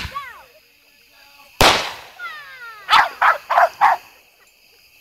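A single firework bang about one and a half seconds in, followed by a dog barking four times in quick succession.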